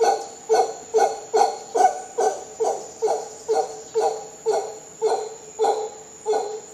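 Mantled howler monkey calling in a rhythmic series of short, deep grunting calls, about two a second, the spacing widening slightly near the end.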